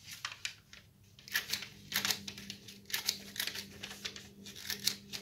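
Small hand-held hole punch clicking as it punches holes in a sheet of paper, with paper rustling between the clicks: a run of short, crisp clicks, several a second.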